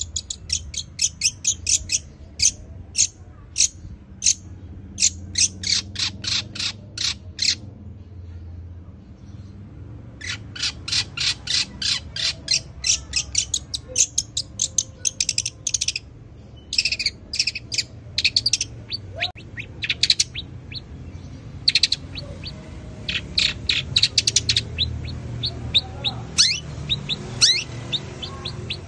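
Long-tailed shrike (cendet) singing: quick runs of short, high, sharp chirps, about five a second, in bursts with a brief pause partway through, strung together as a mimicked sparrow-like chattering song.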